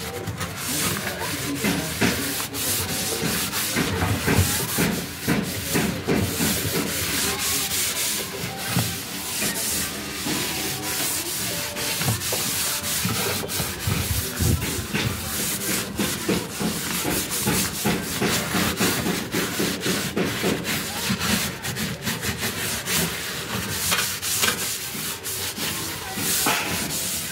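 Scouring sponge scrubbing a soapy gas cooker top: a continuous scratchy rubbing made of many quick back-and-forth strokes.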